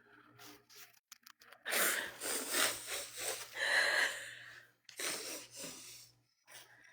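A woman crying: wheezy, sobbing breaths and sniffles in two long bouts, the first about three seconds long, the second shorter.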